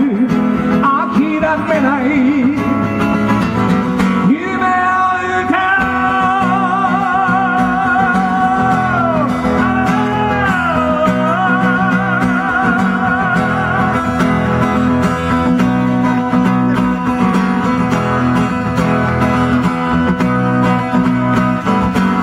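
Live music: a man sings long held notes with vibrato over a strummed acoustic guitar, and after about halfway the voice drops out and the guitar plays on alone.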